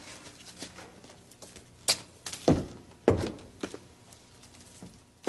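A sharp knock about two seconds in, then two dull thumps about half a second apart, over faint background noise.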